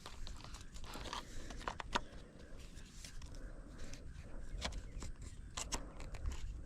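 Scattered small clicks and scrapes of hands working on a broken fishing reel.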